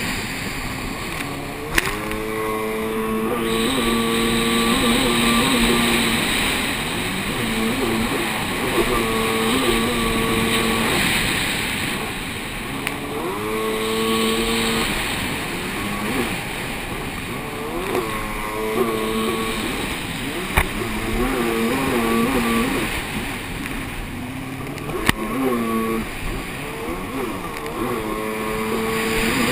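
Racing jet ski engine, heard from on board, revving up and falling off again and again through the turns, over a steady hiss of water spray and wind. A few sharp knocks cut in along the way.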